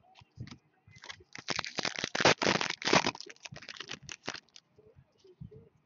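Foil wrapper of a Panini Crown Royale hockey card pack being torn open and crinkled by hand: a dense run of crackling starts about a second in and lasts about three seconds, with lighter rustles and taps of handling before and after.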